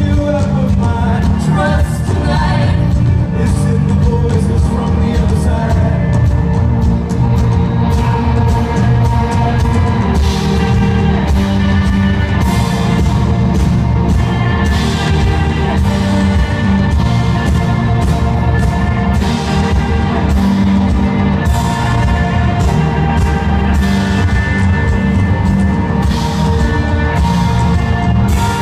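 Live rock band playing loud through a large PA: electric guitars, bass guitar and drum kit keeping a steady beat, with a violin. No lyrics are made out, so this is most likely an instrumental stretch between sung lines.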